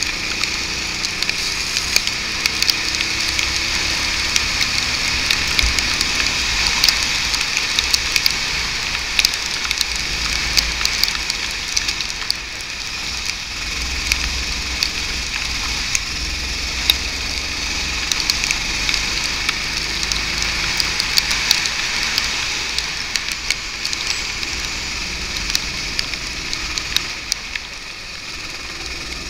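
Kart driving at speed on a wet track, heard from a camera mounted on it: a steady crackling hiss of spray and rain hitting the camera, with wind rumble and the kart's engine faint beneath.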